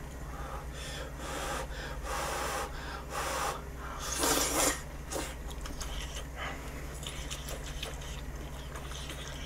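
A person slurping udon noodles from a small bowl: a few airy slurps in a row, the longest and loudest about four seconds in.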